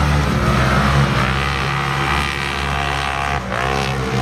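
Several side-by-side UTV engines running hard and revving as they race. Their pitch climbs under acceleration about a second in and again near the end.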